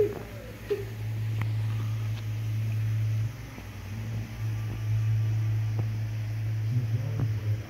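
Steady low hum of aquarium equipment, with a few faint ticks; the hum drops in level for about a second a little past three seconds in.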